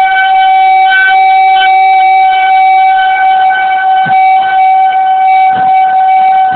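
Outdoor tornado warning siren sounding a loud, steady tone.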